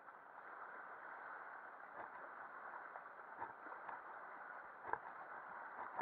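River water rushing steadily around a raft, with a few faint knocks from about two seconds in.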